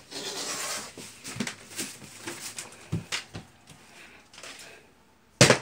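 Light shuffling and a few soft knocks on a wooden floor, then near the end one loud thump of a plastic water bottle, flipped, hitting the floor.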